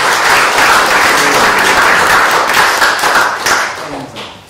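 Audience applauding, steady and loud, then dying away over the last second.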